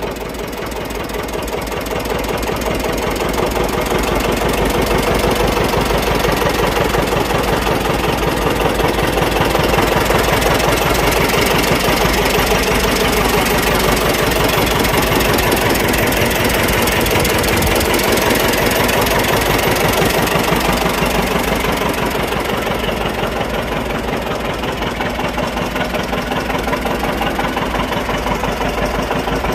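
John Deere 720 Diesel tractor's two-cylinder diesel engine idling steadily, with a rapid, even beat of firing pulses.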